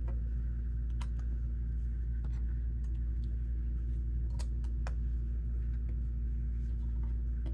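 Scattered light clicks of plastic Lego pieces being handled, a few a second at most, over a steady low hum.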